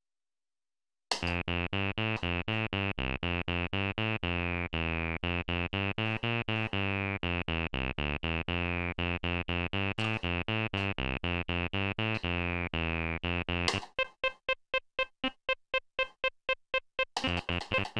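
Venom VB-303 software bass-line synthesizer, an emulation of the Roland TB-303, playing a sequenced acid bass pattern: a fast run of short notes, several a second, each with a falling resonant filter sweep. It starts about a second in. Near the end the pattern turns to sparser, clipped notes with gaps for a few seconds, then a dense run of notes starts again.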